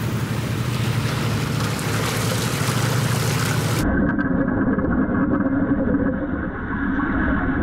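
A steady hiss over a low hum, then, after a sudden change a little over halfway through, an underwater stick-welding arc heard through the camera housing: muffled, bass-heavy steady noise with faint crackles.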